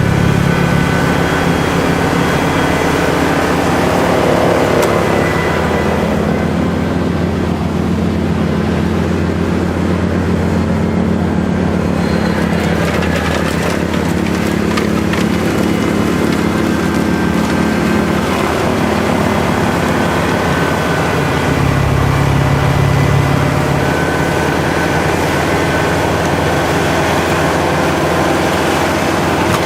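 Kubota L5740 tractor's diesel engine running steadily, with its low drone briefly growing heavier about two-thirds of the way through.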